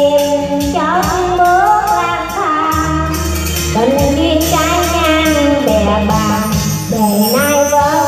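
A woman singing through a microphone over amplified backing music with a steady beat, her voice gliding from note to note in held phrases.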